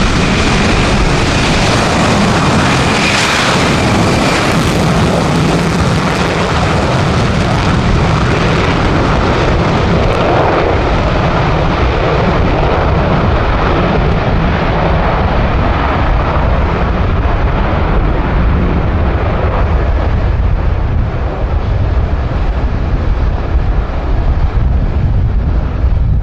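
B-1B Lancer's four afterburning turbofan engines at full afterburner on takeoff: a loud, continuous rushing noise with a deep rumble. The high end fades away after several seconds, leaving mostly the deep rumble, as the bomber climbs away.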